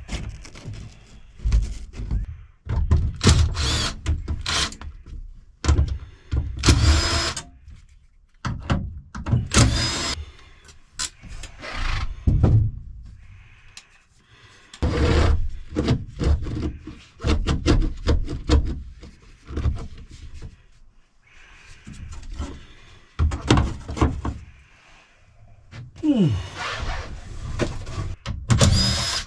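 Irregular clunks, knocks and scraping of interior parts being pried loose and pulled out of a truck cab by hand, with a short falling squeak near the end.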